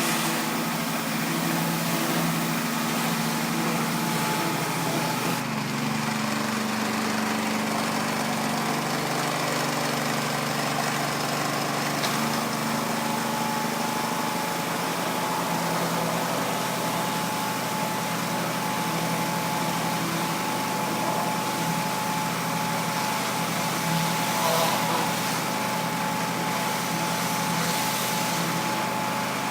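Pressure washer's small engine running steadily under the hiss of the water spray; its note shifts a few seconds in.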